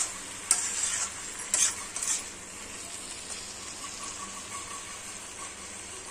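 Spatula scraping and stirring chicken fry in a kadai, four quick scrapes in the first two seconds, over a steady sizzle of the masala frying in oil.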